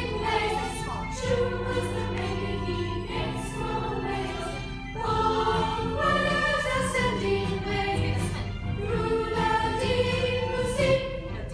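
A group of children singing a song together over sustained keyboard chords, with notes changing about every half second.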